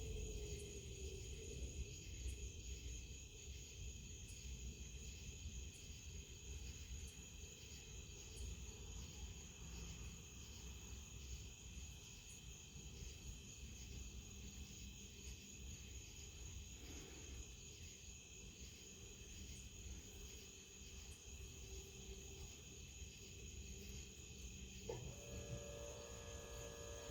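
Faint, steady high-pitched chirring that pulses a few times a second. About 25 seconds in, a refrigerator compressor kicks in with a steady hum of several tones.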